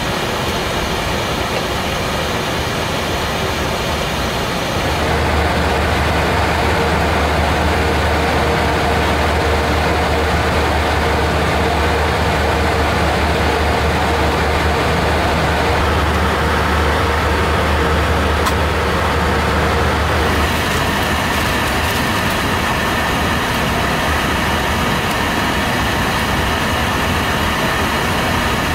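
Steady machine hum and rushing air noise inside a parked airliner's cockpit. The tone shifts abruptly about 5 seconds in and again about 20 seconds in.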